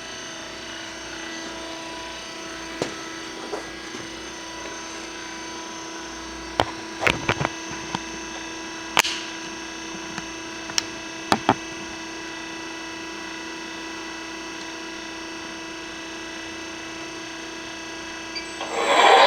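Steady electrical hum of a machining center, with several fixed tones, broken by a scattering of sharp clicks and knocks. Near the end a loud, even rushing noise starts up.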